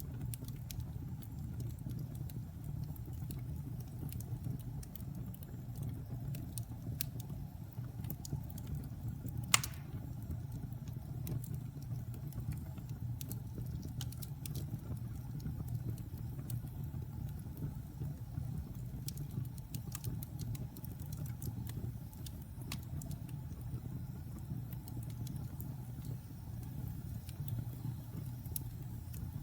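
Wood fire crackling: a steady low rumble of flames with scattered small pops, and one loud snap about ten seconds in.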